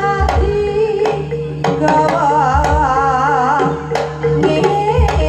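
Live Javanese jaranan music: sharp drum strokes and deep gong beats about every two and a half seconds under a wavering, vibrato-laden melody.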